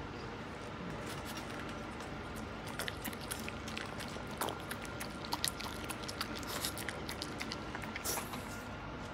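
A small dog licking and chewing food from a hand: quick wet smacking clicks, thickest through the middle and later part, over a steady background hiss.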